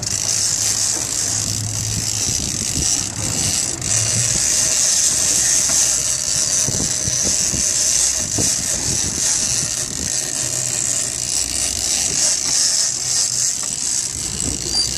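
Sport-fishing boat's engine running in reverse as the boat backs down on a hooked marlin, under a steady rush of wind and water. The ratcheting of a big-game trolling reel being cranked comes and goes over it.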